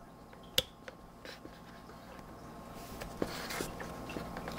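Small plastic clicks and rustling as hands work an XT60 battery connector at the nose of a foam RC plane, with one sharp click about half a second in and more handling near the three-second mark.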